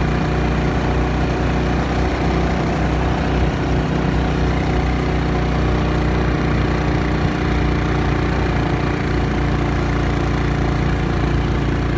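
Small motorcycle engine running at a steady cruising speed while riding, with low wind rumble on the microphone.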